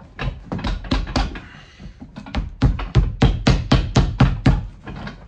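Cobbler's hammer striking a freshly glued oak bark leather sole onto a cowboy boot to seat it. A few separate blows, then from about two seconds in a steady run of blows about four or five a second.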